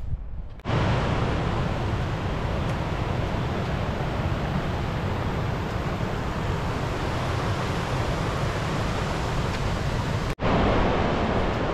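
Steady rush of a fast white-water river running over rocks, starting abruptly just under a second in. It drops out for an instant near the end, then comes back slightly louder.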